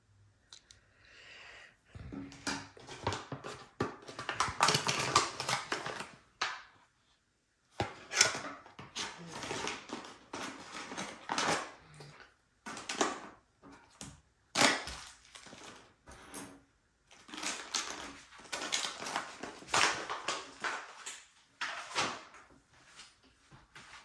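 Kit packaging and small items handled by hand, rustling and crinkling in irregular bursts, with a few sharp knocks of things set down on a wooden table.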